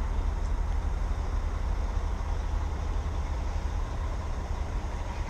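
A steady, choppy low rumble with an even wash of background noise above it; no single event stands out.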